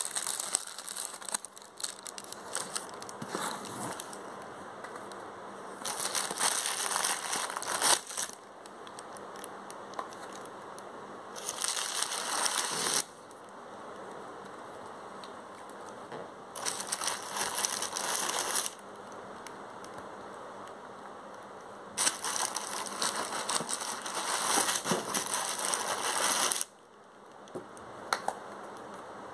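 Plastic air-cushion packing film crinkling and rustling as items are pulled from a cardboard box, in four loud bursts of one to four seconds each, with small clicks and knocks between.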